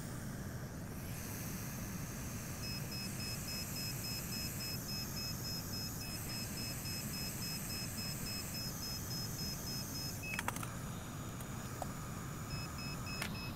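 An electronic beeper sounding rapid short beeps, about three a second, over a steady low hum of bench equipment. The beeping starts a few seconds in, stops with a click about three-quarters of the way through, and starts again near the end.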